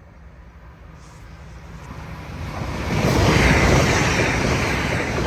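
Lumo Class 803 electric express train passing at speed, a rush of wheels on rail and moving air that builds from about two seconds in and is loudest about three seconds in.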